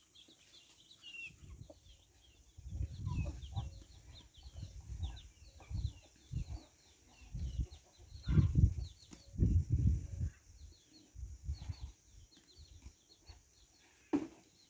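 Chicks peeping over and over in short high calls. Between them comes a string of louder, low, muffled rumbling bursts, loudest around eight to ten seconds in.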